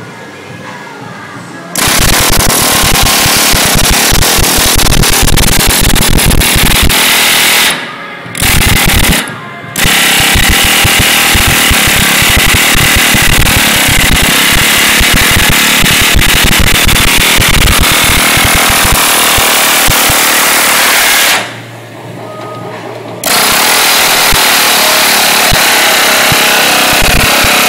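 Pneumatic air hammer with a ball-ended chasing tool rapidly hammering bronze sheet in repoussé work. It runs in long, loud runs with a few brief pauses, including a two-second stop about twenty-one seconds in.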